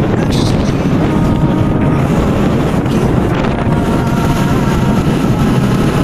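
Motorbike riding along a road: wind buffeting the microphone over the steady running of the engine.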